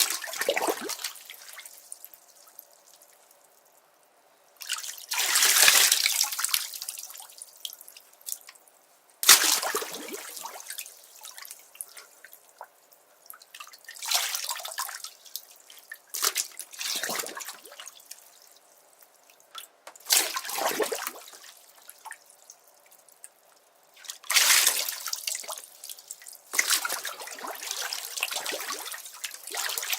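Water splashing in a bathtub in repeated separate bursts, about eight in all, each starting suddenly and dying away over a second or two, with short quieter gaps between them.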